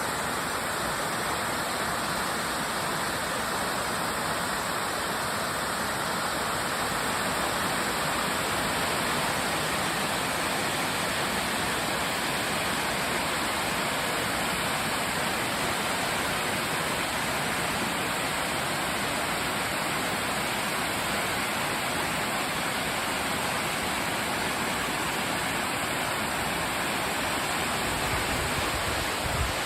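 Steady rush of a tall ribbon-and-cascade waterfall in spring flow, water falling and splashing without a break.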